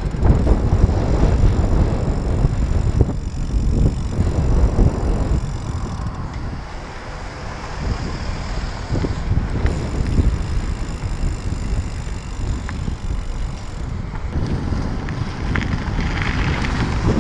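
Wind buffeting a GoPro's microphone while cycling on a paved road: a loud, unbroken rush that swells and eases, strongest in the first few seconds, with a few faint clicks.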